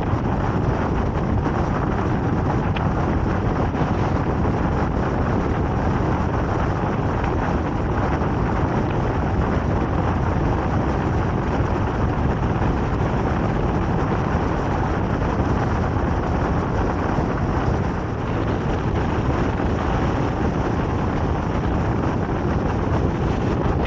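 Steady rumble of a vehicle on the move, with road and wind noise and no change in level.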